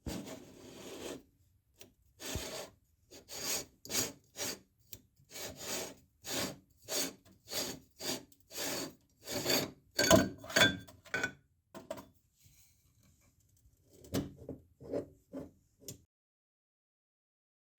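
Repeated rasping, rubbing strokes, about two a second, with a pause about two-thirds of the way through and silence near the end.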